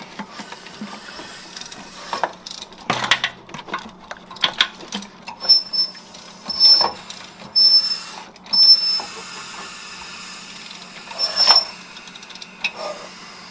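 Hissing and bubbling from the open cylinders of a 5.3L Vortec V8 block with the heads off, with a run of short, high squeaks and a few clicks. The speakers tie this sound to the low compression in cylinder 3, with antifreeze bubbling up in the cylinders.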